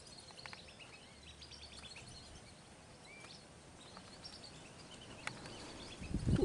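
Small birds chirping in quick, high, scattered calls over faint wind noise. Near the end, a gust of wind starts buffeting the microphone.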